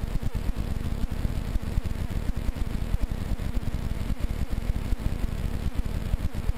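Powered paraglider trike's engine running steadily in flight, with heavy wind buffeting on the microphone.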